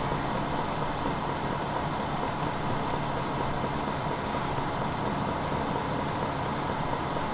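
Kyocera FS-4300 laser printer running after power-up: a steady mechanical hum and whir with a faint steady tone.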